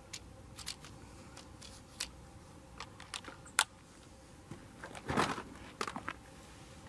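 Light clicks and knocks of a Reximex Zone PCP air rifle being handled as its rear-mounted cocking lever is worked. A louder scraping clack comes about five seconds in, followed by a few small clicks.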